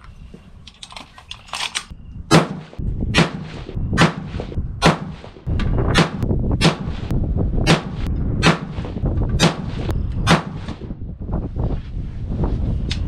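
224 Valkyrie bolt-action rifle firing a 10-shot load ladder: about ten sharp shots, close to one a second, each with a short ringing tail, and fainter clicks between some of them.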